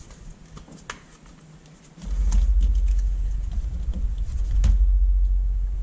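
Light handling clicks and knocks of an LCD panel and its metal parts being moved on a rubber work mat. From about two seconds in, a steady low rumble sets in and becomes the loudest sound.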